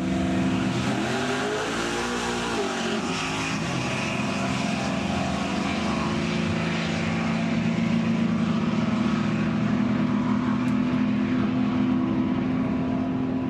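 Two street cars launching side by side off a drag-strip start line and accelerating hard at full throttle. The engine notes climb and drop through the first gear changes, then hold a steady, slowly rising pitch as the cars run out down the track.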